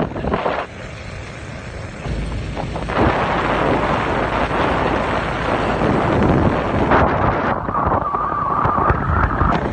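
Wind buffeting the microphone on a moving motorbike, over the rumble of the engine and road. The noise dips for a second or two just after the start, then comes back loud and steady.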